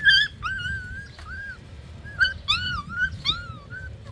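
A puppy whining in a run of short, high-pitched whimpers, some rising and falling in pitch, in two bunches with a brief pause between.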